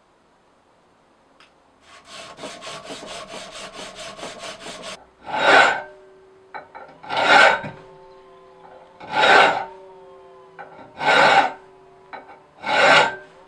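Hand file scraping across a steel knife blade clamped in a bench vise: a quick run of about a dozen short strokes, then five long strokes about two seconds apart. The clamped steel rings faintly between the strokes.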